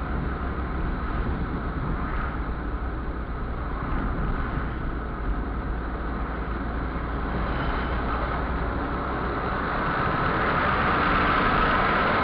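Steady engine and tyre rumble inside a car's cabin as it drives up a mountain highway, growing a little louder about ten seconds in.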